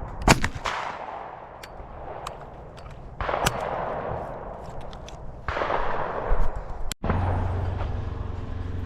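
Shotguns firing at skeet: a sharp close report just after the start, then further reports a few seconds apart, each trailing off in a long rolling echo. Near the end the sound cuts off abruptly and gives way to a steady low rumble.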